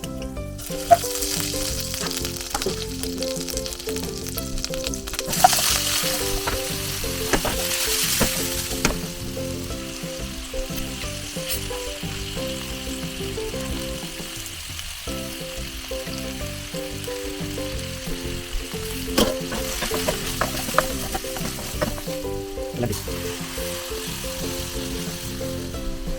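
Food frying in a hot pan, a steady sizzle that starts about half a second in, with a few sharp clicks. Background music plays throughout.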